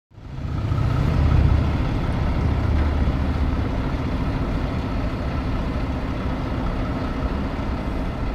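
Heavy diesel truck engine running steadily with road noise. It fades in at the start, and its low rumble is strongest in the first few seconds.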